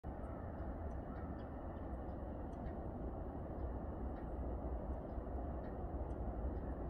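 Outdoor ambience: a steady low rumble and hiss, with scattered short, high bird chirps.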